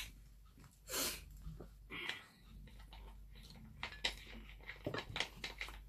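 Faint eating sounds: a person chewing, with scattered small clicks and taps and a short breathy rush about a second in, the clicks coming thicker near the end.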